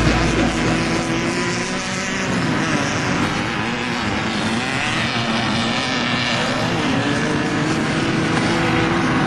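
Off-road race vehicle's engine running at speed, its pitch dipping around the middle and climbing again near the end.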